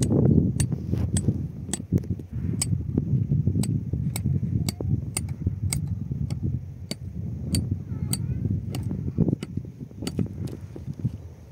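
Low outdoor rumble, as of wind on the microphone, with a sharp tick about twice a second.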